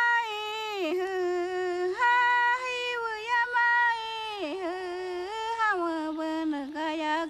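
A single woman's voice singing a slow melody unaccompanied, in long held notes that slide smoothly between pitches.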